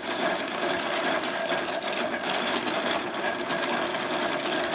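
Hand-cranked plastic wool winder turned fast, running steadily with a quick, dense clicking as it winds plied yarn into a ball.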